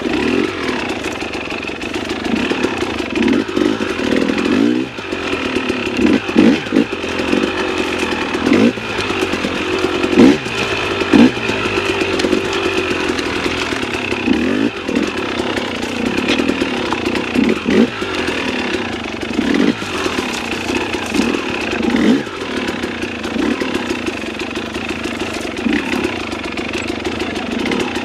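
Dirt bike engine revving in short, irregular bursts as the throttle is blipped on and off every second or two, the way a rider works a bike through a slow technical section.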